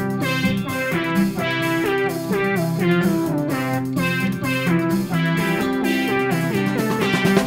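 Background music led by a plucked guitar, a run of quick notes over a steady pulse.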